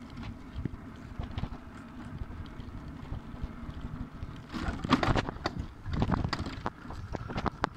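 Electric scooter rolling along a paved path: a steady low rumble from the wheels with frequent small rattling knocks, and two louder bursts of noise about five and six seconds in.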